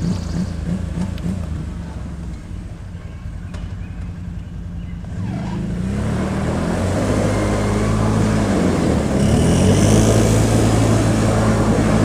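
Quad ATV engine running. It eases off for a few seconds, then revs up and grows louder from about five seconds in, its pitch rising and falling as the throttle is worked through sliding turns in loose dirt.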